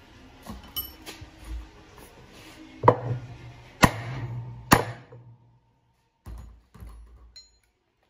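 Three hard knocks about a second apart, each with a short metallic ring, on parts of a washing machine being taken apart, among lighter clatter. Two duller thumps follow after a short silence.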